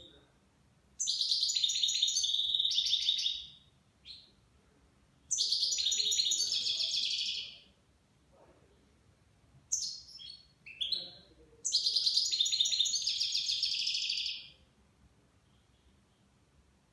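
Caged European goldfinch singing: three long phrases of fast, high twittering, with a few short single calls between the second and third phrase.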